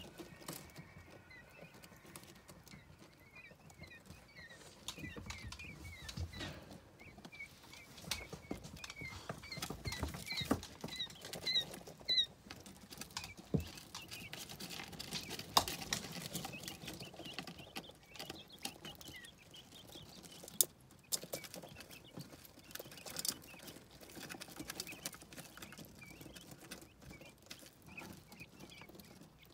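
Eight-day-old quail chicks peeping in short, high chirps, many in a row during the first dozen seconds and sparser afterwards. Scattered sharp clicks and rustling come from the chicks scratching and pecking in wood shavings and at the feeder.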